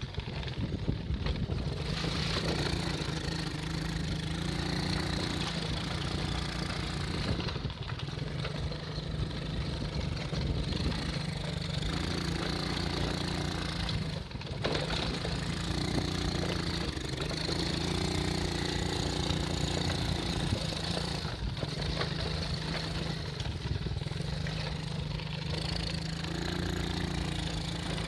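Small off-road vehicle engine running steadily while riding, its note shifting a little, with a few brief dips.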